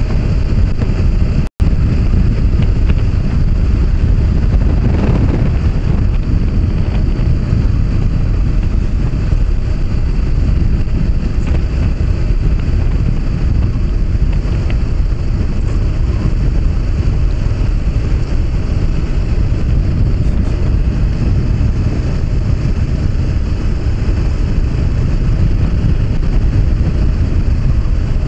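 Wind rushing over the action camera's microphone on a moving motorcycle, a steady low rumble with the Honda CB500X's engine and road noise underneath. The sound cuts out for an instant about a second and a half in.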